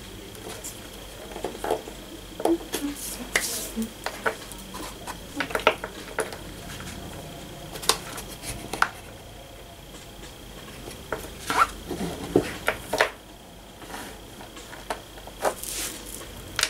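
Pieces of a small wooden coaster holder being handled and pressed together on a work board by hand: scattered light knocks, taps and rubbing, irregular and short.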